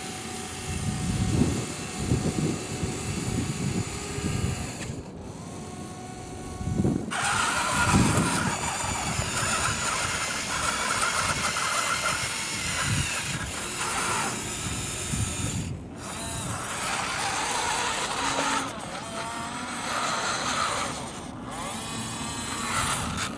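Radio-controlled toy wheel loader's electric motors whining in short runs as it drives and works its bucket, stopping and starting again. Gravel crunches under its tyres and bucket as it pushes into the pile.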